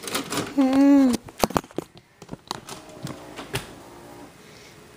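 A brief untranscribed vocal sound, then a few sharp mechanical clicks and clunks of a VCR loading a VHS cassette and starting playback, with a faint whir; it settles to a low hum near the end.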